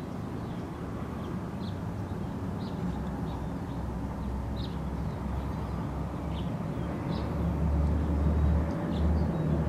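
Used engine oil pouring in a steady stream from a motorcycle's drain-bolt hole and splashing into a half-full drain pan. A low rumble grows louder in the second half, with faint high ticks about once a second.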